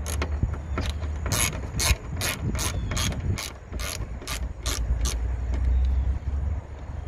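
Ratchet wrench clicking in an even rhythm, about two to three clicks a second, as an 8 mm bolt is backed out. The clicking stops about five seconds in.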